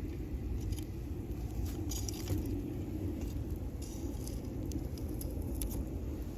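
Wood bonfire crackling, with scattered sharp pops and ticks over a steady low rumble.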